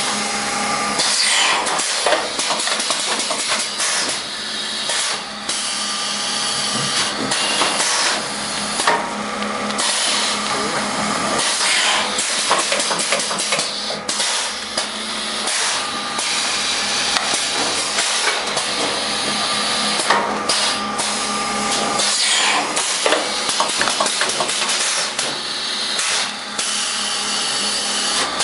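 Automatic bag packing machine running: a dense clatter of knocks from its moving parts over a steady hum, with repeated bursts of hiss.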